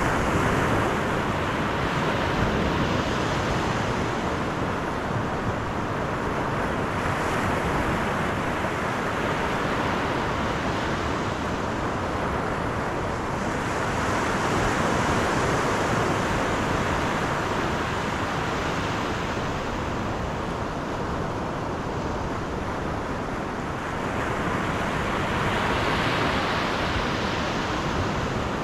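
Steady road and wind noise of a car driving, tyres on pavement and air rushing past, swelling and easing a little now and then.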